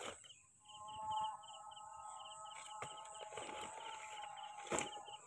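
Rural outdoor ambience of animal and bird calls: a fast, regularly repeating high chirp, a steady high-pitched buzz, and a long held call from about a second in. A few sharp knocks and rustles of handling cut in, the loudest just before the end.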